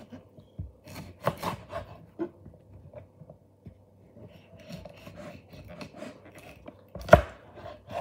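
Kitchen knife slicing green bell pepper on a wooden cutting board: a few knife strikes on the board about a second in, soft scraping and rubbing of the blade and pepper pieces in between, and a sharper chop near the end.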